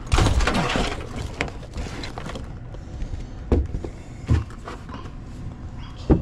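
Rustling, then a few scattered dull knocks and thumps, as of someone shifting and handling things in an attic crawl space.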